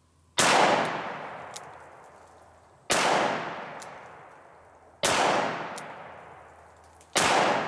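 Four shots from a Smith & Wesson Model 10 .38 Special revolver firing 130 grain full metal jacket rounds, about two seconds apart, each followed by a long fading echo. Faint clicks come between the shots.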